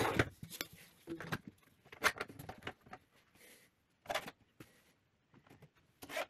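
Scattered light clicks and knocks of plastic as hands handle a 3D-printed blast gate on a 50 mm HT pipe branch, with the strongest knocks about 2 s in, around 4 s and near the end.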